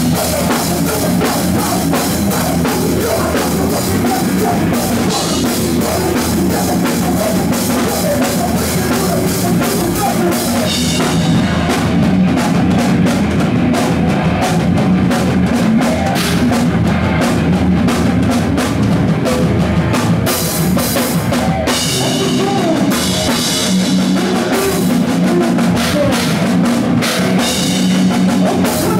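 Loud live rock band playing, the drum kit to the fore with cymbals and bass drum under bass and guitars. For about ten seconds midway the cymbal wash thins out to separate hits, then fills back in.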